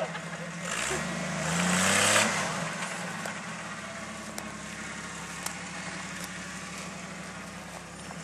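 Off-road Jeep's engine briefly revs up, rising in pitch, with a loud rushing noise about a second in, then settles back to a steady low-rev run as it crawls up the slope.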